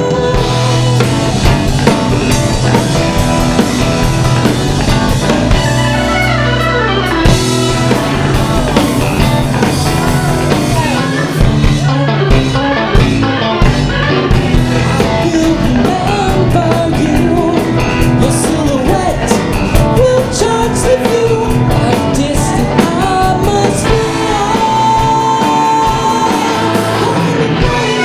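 A live soul-rock band playing, with several singers, drum kit, electric guitar and Hammond organ.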